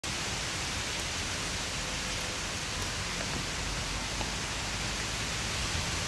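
Steady, even hiss of background noise, with no distinct events.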